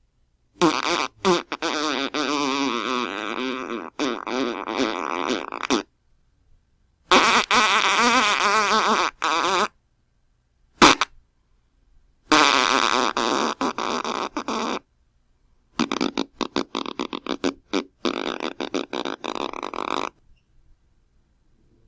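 A series of fart sound effects separated by silence: three long farts with a wavering pitch, a short pop between the second and third, then a sputtering run of quick short farts near the end.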